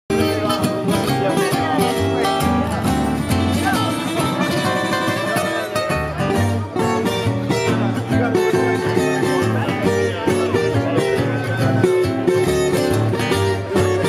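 Gypsy jazz played live by a small acoustic band: acoustic guitars over a plucked upright bass line.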